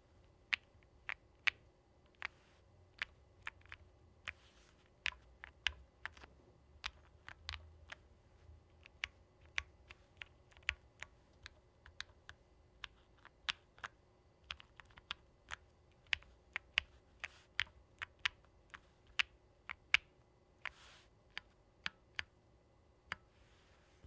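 KBDfans Tiger 80 mechanical keyboard (aluminium case, polycarbonate plate, leaf-spring mount) being typed on slowly, one key at a time: separate clacks at an uneven pace of about two a second.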